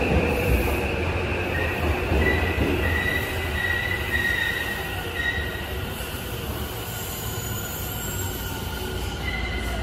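Tokyo Metro 8000 series subway train braking to a stop along the platform: a low wheel rumble that slowly fades as it slows, with a high squeal from about one and a half to five seconds in and briefly again near the end.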